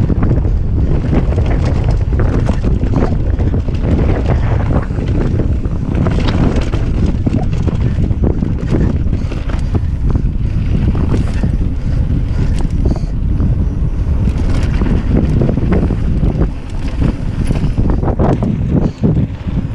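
Wind noise on the microphone of a mountain bike's action camera riding down a dirt trail, with tyres rolling over dirt and stones and frequent short rattles and clicks from the bike.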